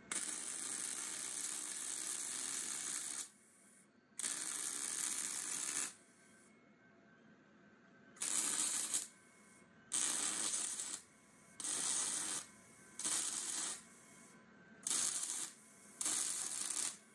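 Electric welding arc crackling in eight separate bursts while seat-mounting brackets are tacked and welded. The first burst lasts about three seconds, the next under two, and the rest about a second each, with short quiet pauses between them.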